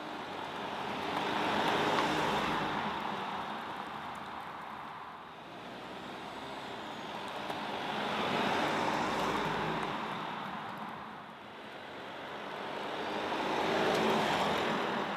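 Three drive-bys of a VW Tiguan R-Line with the 240 hp twin-turbo four-cylinder diesel. Engine and tyre noise swell as it approaches and fade as it passes, about six seconds apart.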